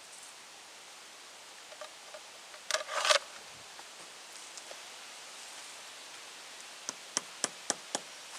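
Work on a wooden rail fence: a brief burst of rustling handling noise about three seconds in, then five sharp taps in quick succession near the end, over a steady outdoor hiss.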